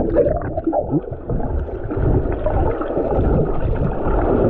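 Muffled gurgling and sloshing of seawater heard through a camera held underwater, with a low rumble and little treble.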